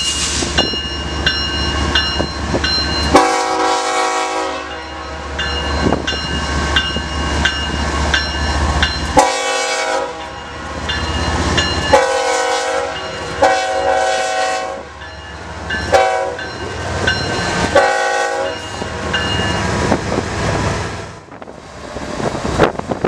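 Diesel freight locomotives rumbling slowly through a grade crossing, the lead BNSF unit sounding its multi-chime air horn in a series of about six blasts, long ones and one short. The crossing signal's bell rings steadily underneath.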